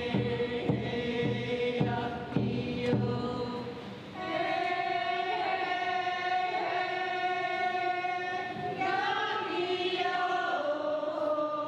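Background music of voices singing long held notes, with a steady beat in the first few seconds and the held notes shifting in pitch a few times.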